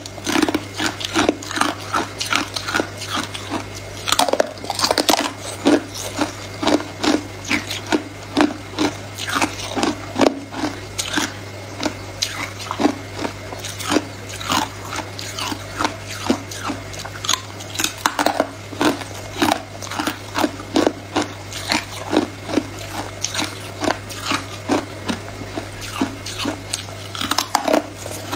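Sticks of hard clear ice being bitten and crunched in the mouth: a quick, uneven run of sharp cracks and crunches, about two or three a second, over a steady low hum.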